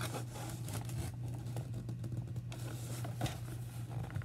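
Hands working at a plastic toy in its cardboard box: light scratching, rustling and small clicks, with a sharper click about three seconds in, over a steady low hum.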